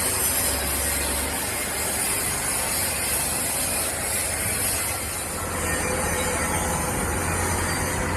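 Steady machinery noise with a low hum underneath.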